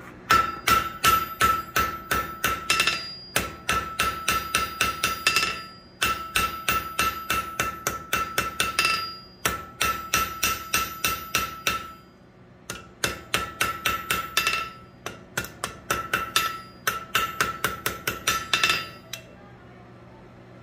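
Blacksmith's hammer striking steel on an anvil, about three or four blows a second in runs of two to three seconds with short pauses between them. A steady metallic ring sounds under the blows, and the hammering stops near the end.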